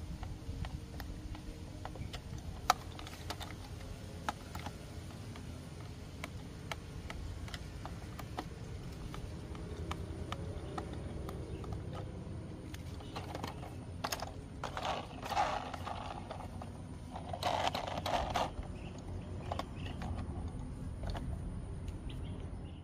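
Small hand screwdriver turning a screw into the plastic underside of a toy jeep: scattered light clicks of the tool and plastic, with louder bursts of handling noise about halfway through and again about three quarters through.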